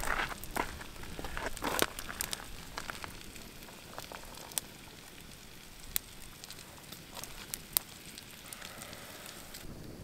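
Wood campfire crackling: scattered sharp pops over a low steady hiss, with some rustling and scraping in the first couple of seconds.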